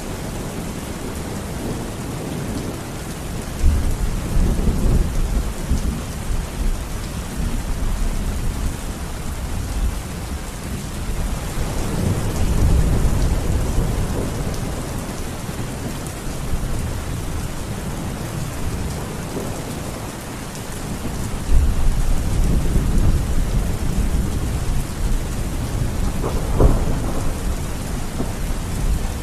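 Steady heavy rain with rolls of thunder: low rumbles swell about four seconds in, around twelve seconds and again past twenty seconds, with a sharper thunderclap near the end.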